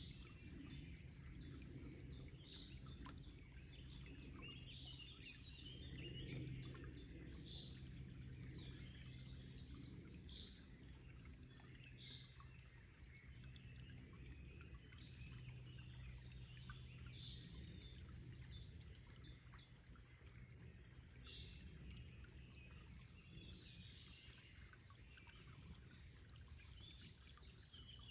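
Several songbirds chirping and singing, with quick runs of short repeated notes, over the faint low rush of a forest stream; all of it quiet.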